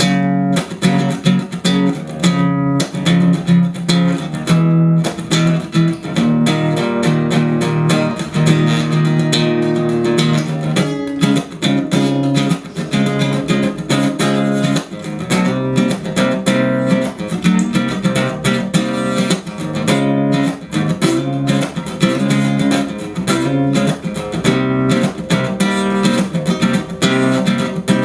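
Guitar music with plucked strings, continuous and thin in the bass.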